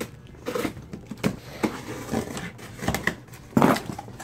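Cardboard box being cut open with scissors and its flaps pulled apart: a run of short scrapes, rustles and knocks, the loudest about three and a half seconds in.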